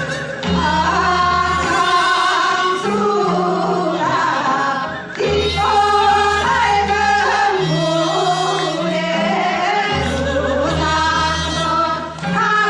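Live music with singing over a sustained bass accompaniment.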